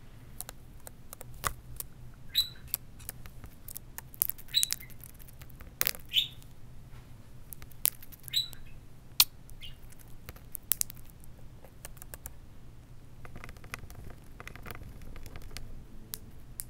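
Budgerigar tapping its beak against mirror glass: sharp, irregular clicks, mixed with a few short chirps.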